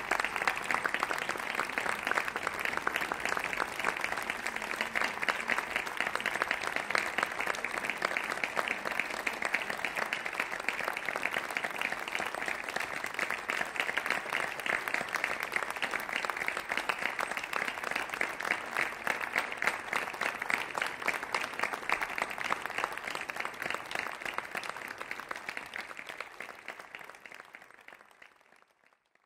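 Audience applauding steadily, a dense patter of many hands clapping, which fades away over the last few seconds.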